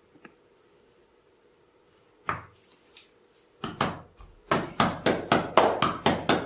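Percussive massage strikes on the head or shoulders: one sharp slap, then a quick rhythmic run of taps at about four a second.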